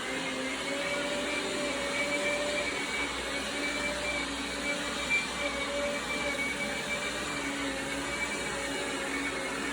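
Dreame Bot L10 Pro robot vacuum running with its suction fan on: a steady whoosh with a high motor whine.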